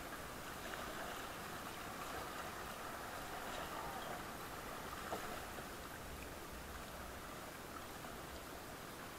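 River current rushing and rippling past an inflatable raft as it is paddled through a shallow riffle: a steady hiss of moving water.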